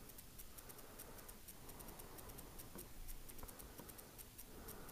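Faint, rapid high-pitched ticking, about four or five ticks a second, over quiet background noise.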